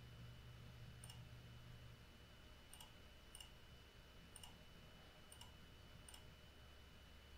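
Faint computer mouse button clicks, six of them spaced irregularly over several seconds, above a low steady room hum.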